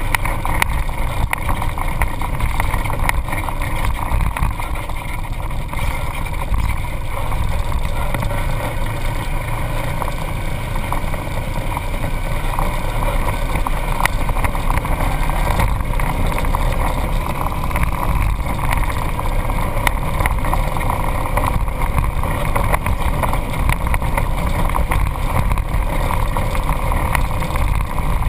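Off-road vehicle driving on a sandy dirt trail: steady engine and drivetrain rumble with wind buffeting on the microphone, and frequent small knocks and rattles from the rough ground.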